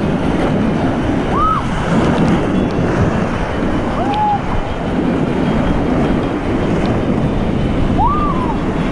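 Class III whitewater rapids rushing and churning loudly around a kayak at water level, with splashing against the microphone. Three short whistle-like tones that rise and fall stand out over the water, about a second and a half in, near four seconds and near the end.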